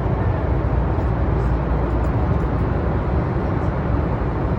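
Steady, loud jet engine and airflow noise heard inside the cabin of a Boeing 737 MAX 8 with CFM LEAP-1B turbofans, a deep even rumble as the airliner takes off.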